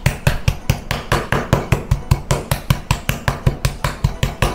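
Flat-faced metal meat pounder beating a raw boneless chicken thigh on a wooden cutting board: quick, even blows, about seven a second.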